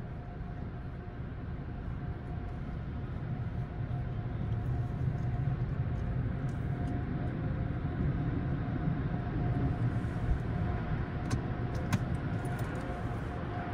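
Steady low rumble of a car's engine and the machinery of an automatic tunnel car wash, heard from inside the car's cabin as it rolls slowly up to the wash entrance. It grows louder about four seconds in, with a faint steady hum underneath and a few sharp clicks near the end.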